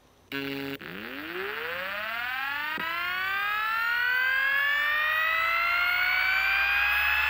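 Hitachi Deskstar 7K400 7200 rpm SATA hard drive powering on: a short buzz, then the spindle motor's whine rising in pitch as the platters spin up, levelling off at full speed after about four seconds. A single click comes about three seconds in, and a low hum joins near the end.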